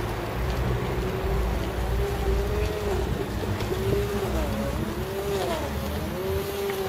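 Low rumble of wind and rolling noise on the microphone of a camera carried on a moving bicycle, with a pitched squeak that rises and falls in arcs about once a second.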